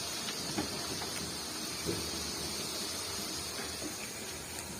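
Steady sizzling hiss of jilapi batter frying in hot oil, with a few faint light clicks.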